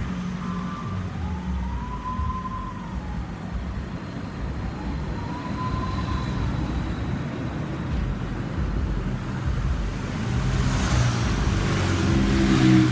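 Emergency vehicle siren wailing in two slow rise-and-fall sweeps, over a steady low vehicle rumble. Near the end a rushing noise builds and grows louder.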